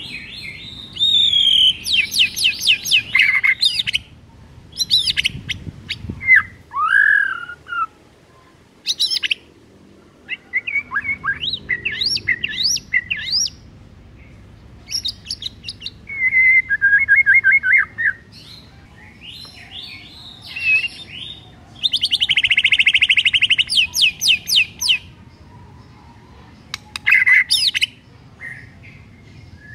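White-rumped shama (murai batu) singing: a string of varied phrases of fast repeated notes, trills and whistled glides, broken by short pauses, with a longer rapid chatter about three-quarters of the way through.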